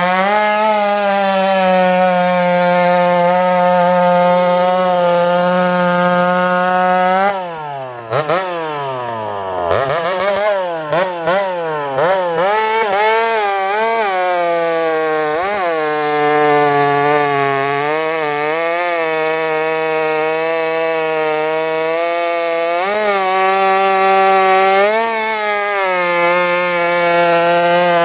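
Old two-stroke chainsaw running at high revs. About seven seconds in its pitch drops sharply and then climbs back. For the next several seconds it wavers lower as the saw works under load in a cut, before settling to a steady high pitch near the end.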